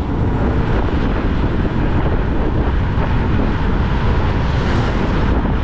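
Steady wind rush buffeting the microphone of a motorcycle at cruising speed, mixed with the engine and road noise of a Honda XRM 125 underbone.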